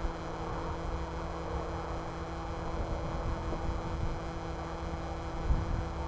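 Strong wind buffeting the microphone in an uneven low rumble, over a steady faint hum. A brief bump comes about five and a half seconds in.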